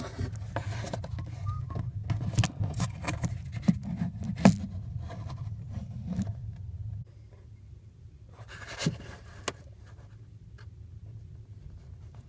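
Handling noise as the camera is moved around inside the truck's plastic blower housing: a dull rumble with irregular clicks and scrapes for about the first seven seconds, then a short burst of scraping about nine seconds in.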